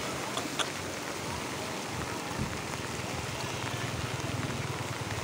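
Muddy river in flood rushing past in a steady roar of water, with rain falling. Two sharp ticks sound about half a second in, and a low hum joins in for the last couple of seconds.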